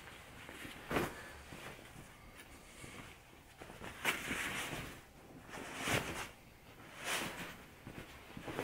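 Fabric pillowcase rustling as it is pulled and worked over a gel memory-foam pillow, in several brief swishes.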